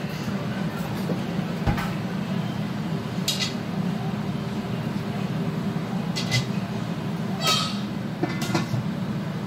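Steady low rumble from the kitchen stove, with a few short clinks of dishes at irregular moments.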